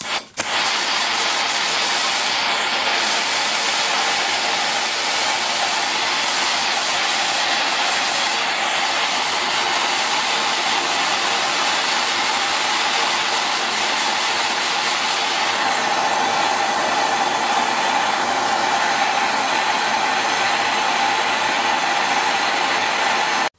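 Handheld gas torch burning with a steady, loud hiss as its flame heats a brass pipe union for silver soldering. The hiss starts about half a second in and stops abruptly at the end.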